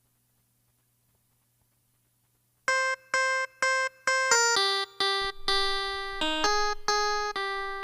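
Near silence for almost three seconds, then a music intro begins: a melody of short, evenly spaced electronic notes, about two to three a second.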